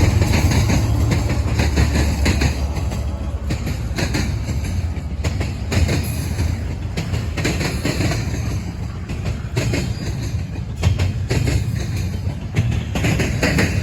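Double-stack freight train rolling past, its wheels clicking over rail joints over a steady low rumble that eases slightly.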